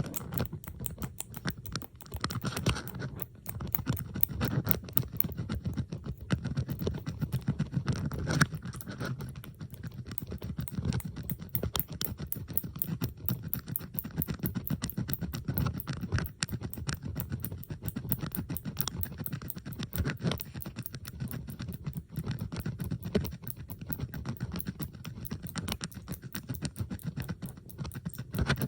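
Metal bobby pins being handled: a dense, unbroken run of small clicks and scratches, with several recordings layered over one another.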